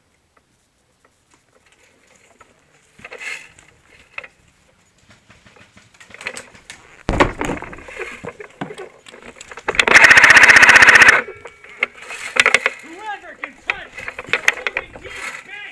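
Airsoft MG42 replica firing one full-auto burst of about a second and a half, a fast, even rattle of shots, loud and close. Scattered clicks and knocks of gear come before and after it.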